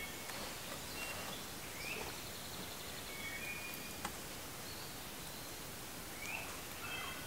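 Woodland birds calling: short chirps and brief whistled notes come and go over a steady faint hiss, with one sharp click about four seconds in.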